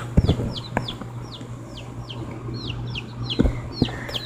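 Baby chicks peeping: a steady run of short, high, downward-sliding peeps, two or three a second, with a few dull knocks.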